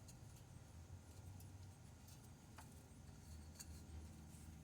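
Near silence: a low steady hum with two faint clicks.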